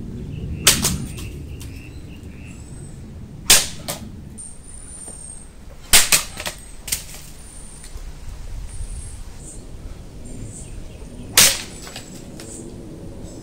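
1060 steel katana cutting dry bamboo poles: four sharp, loud cracks a few seconds apart, some followed by one or two lighter knocks. The bamboo is dry and partly yellowed, so it is very hard to cut and tends to split rather than slice cleanly.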